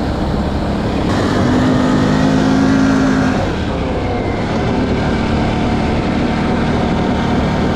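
Can-Am Outlander 570's V-twin engine pulling under throttle as the ATV is ridden. It gets louder about a second in, eases off after about three and a half seconds, then runs steadily.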